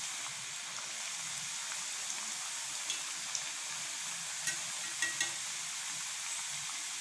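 Rice-flour murukku deep-frying in hot oil: a steady sizzle with a few small pops. This is the sizzle that dies down once the murukku are cooked through.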